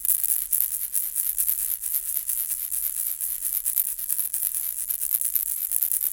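Baby rattle shaken steadily and continuously, its loose beads making a dense, bright stream of tiny clicks with no pauses.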